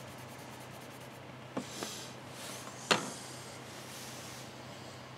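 Brown pen scratching faintly on graph paper, with two light clicks about a second and a half in and one sharp tap about three seconds in, as the pen is put down on the desk.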